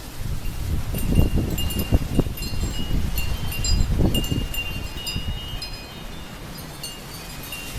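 Wind chimes ringing and jangling in a gusty windstorm, with wind buffeting the microphone in heavy gusts that ease near the end.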